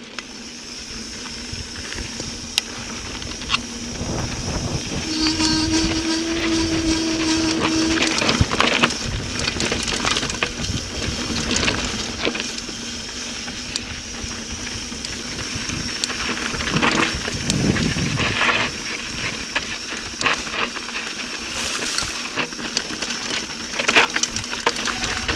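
Mountain bike riding fast down a rocky dirt trail: wind rushing over the microphone, tyres crunching and the bike rattling and knocking over bumps. The noise grows louder over the first several seconds as the descent steepens.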